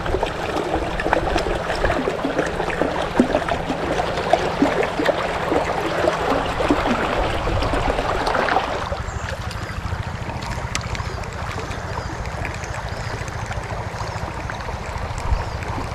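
Shallow river running high over stones, a dense babbling patter of water. About nine seconds in it turns quieter and smoother.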